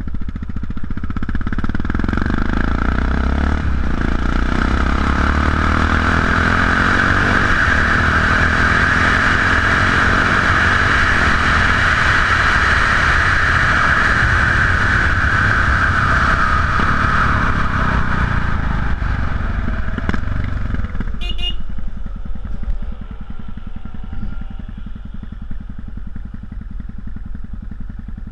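Yamaha XT660X single-cylinder engine through Leo Vince exhausts, pulling away and accelerating, with heavy wind rush on the camera microphone at speed. After about twenty seconds there is a click, and the noise drops as the bike slows.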